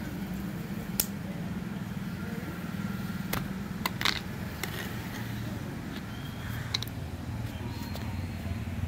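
Screwdriver tapping and prying at the plastic vent caps on top of a car battery: a handful of sharp plastic clicks, over a steady low hum.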